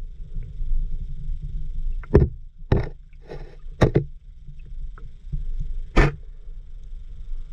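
Muffled underwater rumble picked up by a camera submerged in river water, broken by several sharp knocks as the camera housing is bumped.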